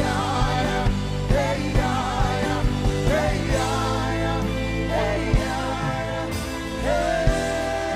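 Live gospel worship music: a singer's voice wavering with vibrato over sustained keyboard chords and a steady drum beat, ending on a long held note.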